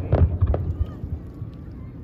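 Fireworks display: a few sharp bangs in the first half-second, then a quieter low rumble between bursts.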